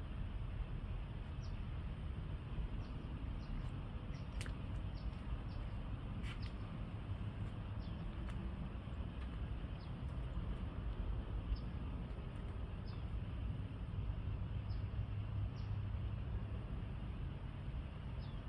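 Small birds chirping: short, high, falling chirps every second or so, with a couple of sharp clicks, over a steady low rumble.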